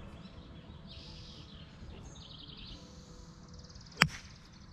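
A golf club striking a ball once, a single sharp crack about four seconds in, over a steady outdoor background.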